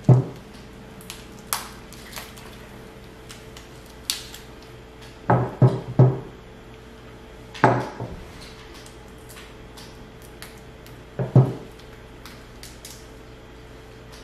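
Irregular sharp clicks, cracks and clatters of king crab legs and eating utensils against a plate during a meal, about nine knocks that come singly and in small clusters, some with a dull thud under them.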